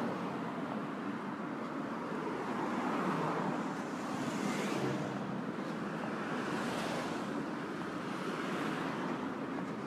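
Steady roar of road traffic, swelling a couple of times as vehicles go by, with wind noise on the microphone.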